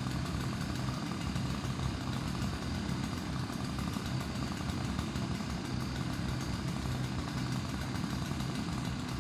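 A large engine running steadily at a constant speed, a low even hum.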